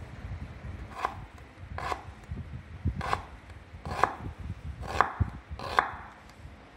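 Kitchen knife slicing through a red onion and striking a wooden cutting board: six crisp cuts, about one a second, over a low background rumble.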